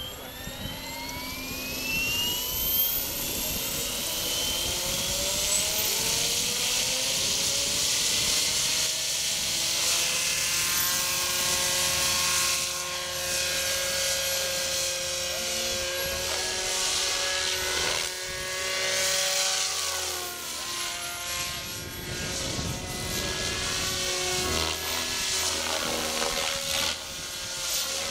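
Radio-controlled model helicopter spooling up, its motor whine rising in pitch over the first few seconds. It then flies, the whine and rotor noise drifting up and down in pitch as it manoeuvres.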